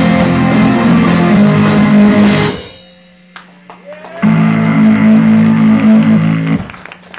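Rock band with guitar and drum kit playing live. The band stops dead about two and a half seconds in, leaving a low steady hum, then comes back in for a final loud chord of about two seconds that cuts off near the end.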